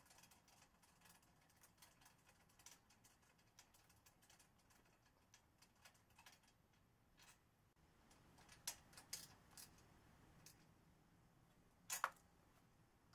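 Near silence broken by faint metallic clicks and taps, with a few sharper clicks in the second half. A spark plug is being threaded by hand into the cylinder head of a Kawasaki FR730V engine, then a socket wrench is set on it to tighten it.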